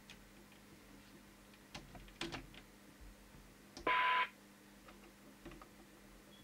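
Harvard 420M CB radio's loudspeaker briefly passing a received signal as the squelch opens: a steady tone with hiss for about half a second about four seconds in, cut off sharply as the squelch closes again. A few faint clicks come before it.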